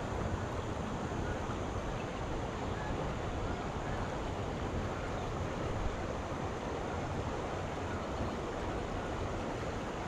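Steady rushing of a river flowing over rocky shoals, an even noise without breaks.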